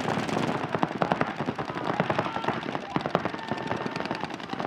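Several paintball markers firing rapid streams of shots at once, a dense, continuous crackle of shots in overlapping runs.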